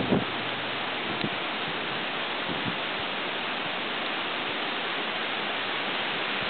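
Steady rain falling, an even hiss. A brief gust of wind buffets the microphone right at the start.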